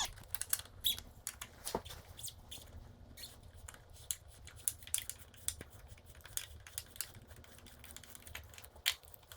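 Scattered small clicks and light taps, irregularly spaced, of hand tools and small metal parts being handled during a dirt bike teardown.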